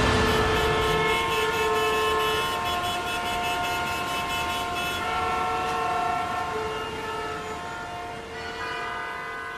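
Closing music of held chords that change every second or two over a light ticking beat, fading out at the end.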